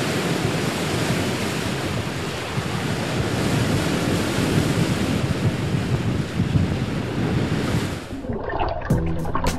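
Steady rushing sound of ocean waves and surf with wind. It cuts off about eight seconds in, when music with a steady beat starts.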